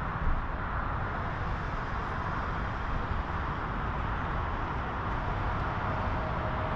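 Steady wash of city road traffic, tyre and engine noise blended together with no single vehicle standing out; a faint steady tone comes in near the end.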